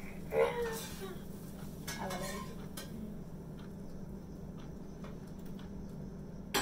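Light clinks and clicks of metal utensils against a pan and plates, a few small taps spread over the last few seconds, with a steady low hum underneath and two brief bits of a voice near the start.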